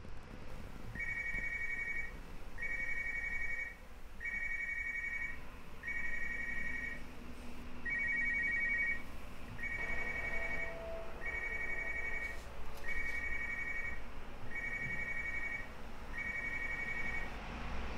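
Smartphone ringing with an incoming call: a ringtone of short two-tone electronic beeps, ten in a row about a second and a half apart, stopping a little before the end.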